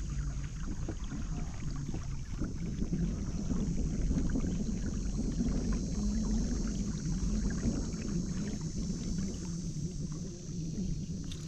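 Water sloshing against the hull of a fishing kayak under a steady low rumble, with faint small ticks and a constant high hiss behind.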